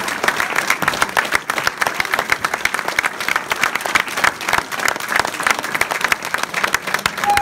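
Audience applauding, many hands clapping fast.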